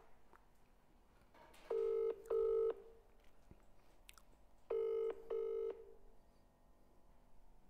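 British telephone ringing tone played through a mobile phone's speaker: two double rings about three seconds apart, each a pair of short steady buzzing tones, the call still unanswered.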